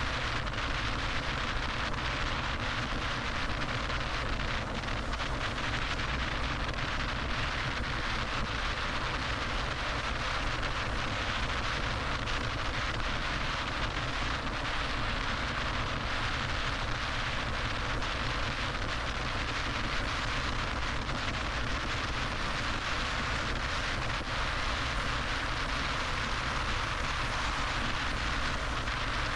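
Steady road and wind noise of a car driving along a freeway, an even rushing sound that stays the same throughout.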